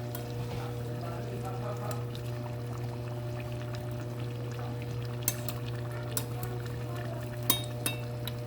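Lumpia deep-frying in oil, a steady sizzle over a constant low hum. A few sharp metal clinks come about five seconds in and twice more near the end, likely utensils against the pan.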